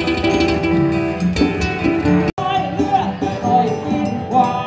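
Music led by plucked strings, broken off by a sudden split-second gap about two seconds in. After the gap a different stretch of music carries on, with a wavering melodic line.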